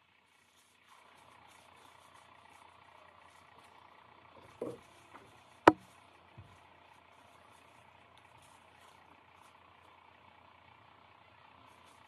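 A tumbler being handled and wiped on a workbench: a knock, a very loud sharp click about halfway through, and a couple of lighter taps, over a faint steady hum.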